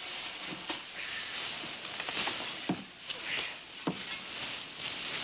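Leafy branches and bushes rustling and being pushed aside, with irregular sharp cracks of snapping twigs, as men and a horse force their way through dense brush.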